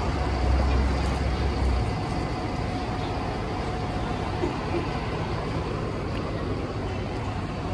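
City bus running close by, a deep engine rumble loudest in the first two seconds, then steady street traffic noise as it moves off.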